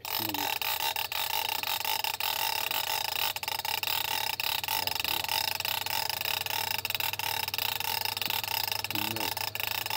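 Spinning fishing reel being cranked to wind in line: a steady whirring with rapid fine clicking that starts suddenly and keeps going.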